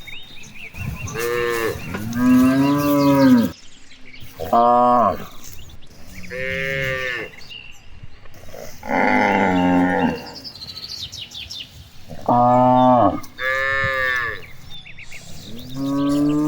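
Cattle mooing over and over, about eight calls in a row from more than one animal, some low and some higher-pitched.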